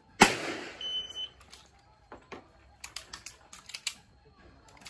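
A start-of-string shooting drill: one loud sharp crack just after the start, a short high electronic beep about a second in, then a run of light, sharp clicks and taps of pistol shots and hits.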